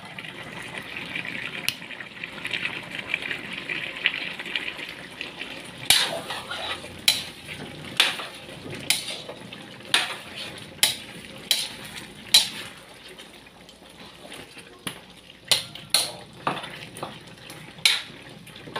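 Metal spatula stirring a chicken stew in a large aluminium wok: a steady sizzle at first, then sharp clanks of metal on the pan about once a second from about six seconds in.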